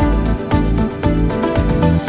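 Background music with a steady beat: electronic music with sustained notes and a regular beat about twice a second.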